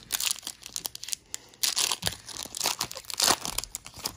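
A foil Pokémon booster pack wrapper being torn open and crinkled in hand, in several rough, irregular tearing bursts, the loudest about two seconds in and just after three seconds.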